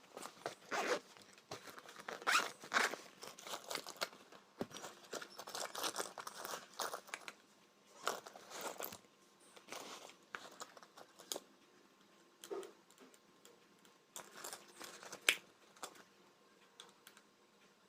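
Rummaging through a box of tools for a screwdriver: irregular rustling and scraping with scattered small clicks and knocks.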